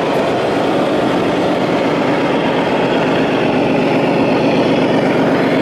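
Radio-controlled model Scania truck's sound module playing a heavy diesel engine running steadily at idle.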